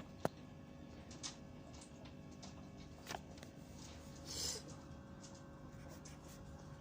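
Quiet room tone with a steady low hum, a sharp click just after the start and a couple of fainter clicks, and a short hiss about four seconds in.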